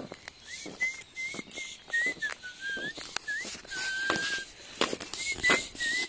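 A person whistling a string of short notes, some sliding up or down and one held longer about four seconds in, over sharp clicks of footsteps.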